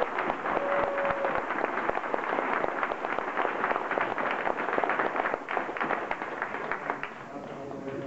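Crowd applauding, the clapping thinning out and dying down near the end.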